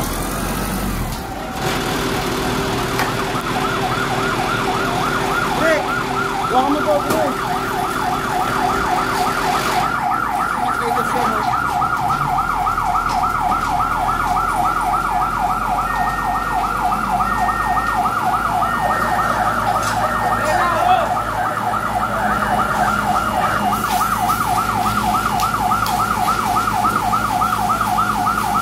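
Emergency-vehicle siren in a fast yelp, its rising sweeps repeating several times a second, starting about a second and a half in and going on steadily.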